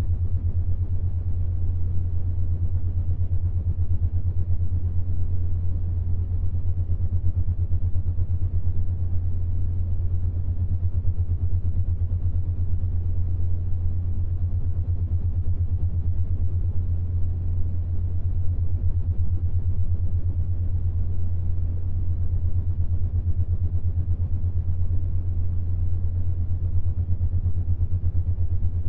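Binaural-beat tone set to the 7.83 Hz Schumann resonance: a steady low drone with a soft hiss above it.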